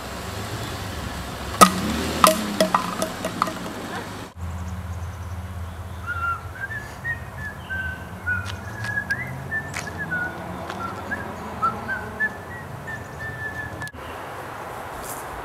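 A person whistling a tune over a steady low rumble. In the first few seconds, before the whistling, there are a handful of sharp knocks and clicks, the first the loudest.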